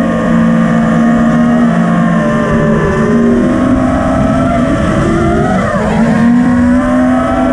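FPV quadcopter's motors and propellers whining, several pitches moving together with the throttle, over wind rush. The pitch sags about four seconds in and climbs back near six seconds.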